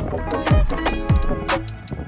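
Background music with a steady beat: a kick drum and a snare under a melody.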